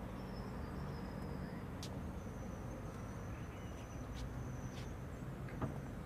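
Steady background ambience: a low hum under a noisy haze, a faint high-pitched tone that comes and goes, and a few soft clicks.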